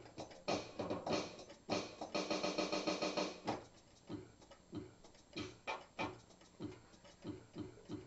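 Electronic keyboard being played: several loud chords, one of them held for about a second and a half, then from about halfway in a run of quieter, short single notes.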